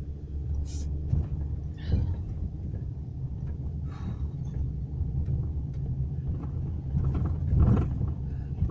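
Steady low rumble of a car driving, heard from inside the cabin, with a few short noises close to the microphone, the loudest near the end.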